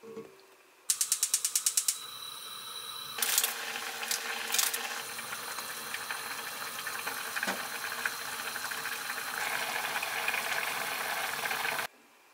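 Gas stove burner igniter clicking rapidly, about ten clicks in a second, then the burner lit and running with a steady hiss under the pot, with a few knocks. The sound cuts off suddenly near the end.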